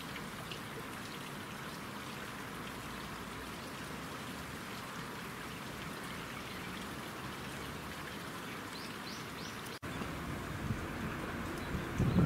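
Steady hiss of falling water, with a few faint bird chirps near the end. It cuts off abruptly about ten seconds in and gives way to a different outdoor background with a couple of low thumps.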